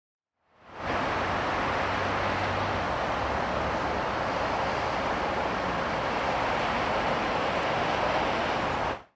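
Excavator running an AFE RDM58EX forestry disc mulcher, the large spinning steel disc making a loud, steady rushing noise with a low hum under it. The noise fades in about half a second in and cuts off near the end.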